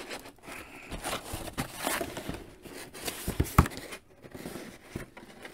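A large cardboard toy box being worked open by hand: irregular scraping, rustling and clicking of cardboard, with a sharp knock about three and a half seconds in. The box is stiff and hard to open.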